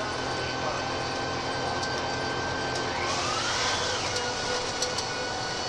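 DAF SB200 Wright Commander single-deck bus heard from on board, its driveline running with a steady whine; about three seconds in a second whine rises in pitch as the bus gathers speed, with a brief hiss of air at the same time.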